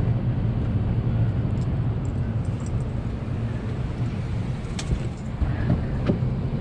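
Airbus A320 cabin during boarding: a steady low hum of the cabin air and ventilation, with a few sharp clicks and knocks about five and six seconds in.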